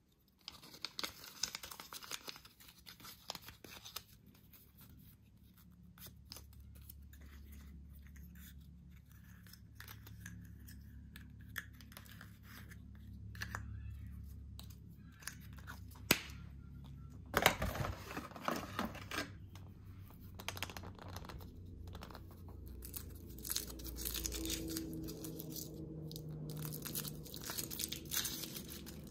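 Foil wrappers of Kinder Surprise chocolate eggs being torn open and crinkled by hand. The crackling comes in spells of sharp clicks and rustles, loudest in a burst a little past halfway and again near the end.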